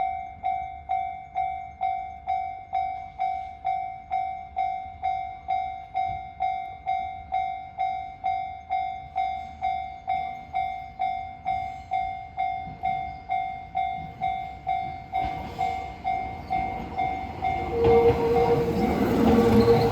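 Railway level crossing warning bell ringing in a steady rhythm, just under two strikes a second, each strike ringing and dying away. In the last few seconds an approaching train's rising noise swells over it, with a steady tone coming in near the end.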